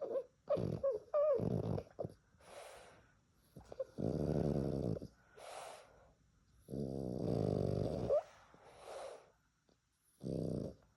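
French bulldog snoring: loud rattling inhales about a second or more long, three of them, alternating with softer breathy exhales. Squeaky, whistling snorts come in the first two seconds.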